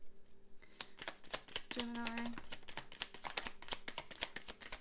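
Tarot deck being shuffled by hand: a rapid, uneven run of card clicks and flicks.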